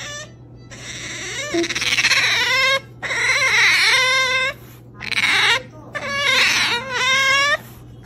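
Asian small-clawed otter giving four long, high-pitched, wavering calls in quick succession: the excited begging noise it makes when it is about to be fed.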